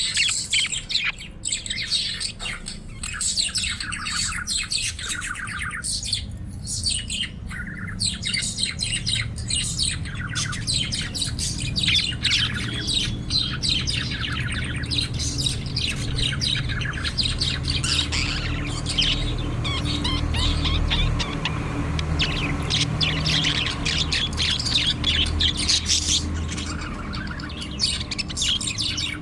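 Budgerigars chirping and warbling nonstop in a dense stream of fast, overlapping chirps, over a low steady rumble.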